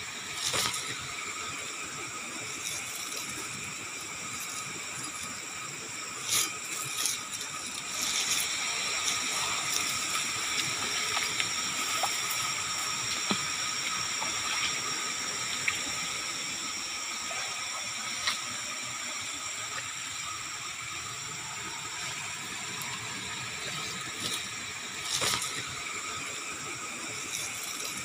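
Steady background hiss with several high, steady whines running through it, broken by a few brief knocks or rustles about six seconds in and again near the end.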